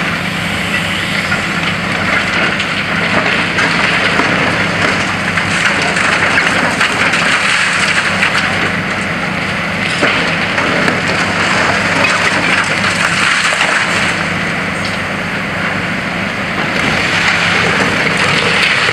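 High-reach demolition excavator's diesel engine running steadily under a constant crackle and clatter of concrete and brick breaking and falling as its jaws pull at the building.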